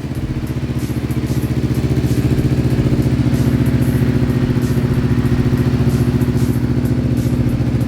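Kawasaki Ninja Z250SL's single-cylinder engine idling steadily through an aftermarket exhaust, with an even low pulse.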